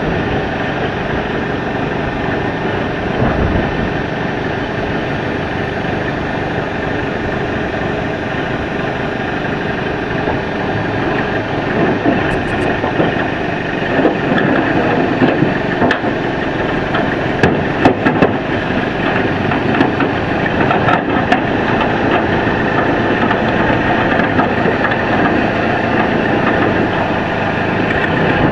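An engine running steadily throughout, with scattered clanks and knocks over it from about twelve seconds in.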